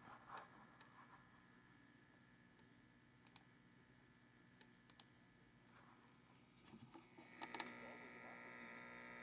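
Computer speakers putting out a faint electrical hum with a few sharp clicks, then, about seven seconds in, a louder buzzing hum with crackles: electrical interference coming through the speakers.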